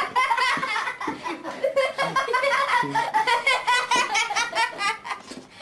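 Hearty human laughter: a rapid, high-pitched run of laughs that fades near the end.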